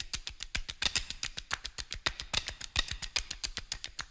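A fast, irregular stream of sharp taps or slaps, roughly ten or more a second.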